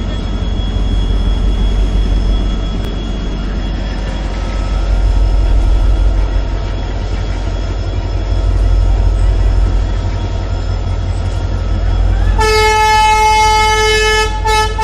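Diesel locomotive cab with the WDP4D's EMD two-stroke V16 running in a low, steady rumble as it creeps forward in a low throttle notch. About twelve seconds in, the locomotive's horn sounds a loud single note and holds it, with a brief break near the end.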